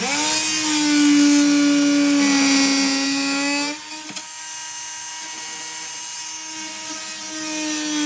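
Ridgid 4-amp corded oscillating multi-tool starting up with a short rising whine, then running with a steady high buzz as its blade plunge-cuts down into a block of wood. The buzz drops quieter about four seconds in and swells louder again near the end.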